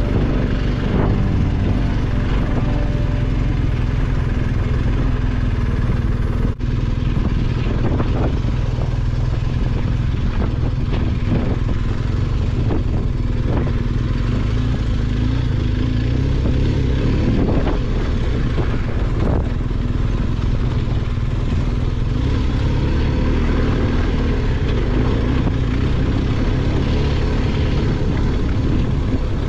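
BMW R1250GS's boxer-twin engine running while the motorcycle is ridden, with a heavy, steady low rumble and scattered short knocks. The sound breaks off briefly about six and a half seconds in.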